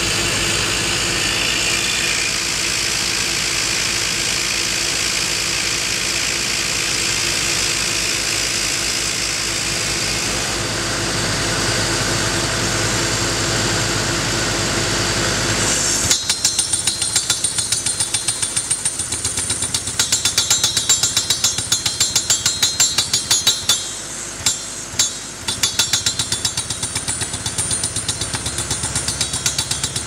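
HXING pile-driver drilling rig drilling into rock: the rig runs steadily for about half the time, then the percussive rock hammer cuts in suddenly and hammers rapidly and evenly, stopping briefly a couple of times before going on.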